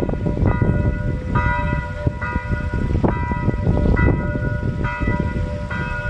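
Church bells ringing, one stroke a little more than once a second, each note hanging on under the next, over a steady low rumble.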